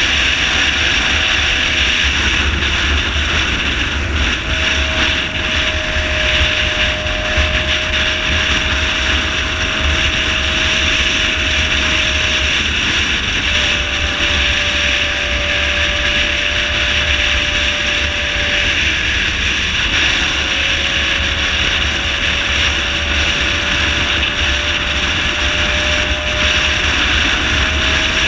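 Motorcycle riding at highway speed: a loud steady rush of wind and road noise with low buffeting, and the engine's steady whine underneath, shifting slightly in pitch a few times.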